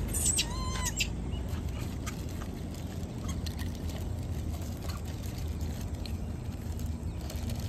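A rhesus macaque gives one short call that rises and falls in pitch, about half a second in. A steady low rumble runs underneath, with a few faint ticks and rustles.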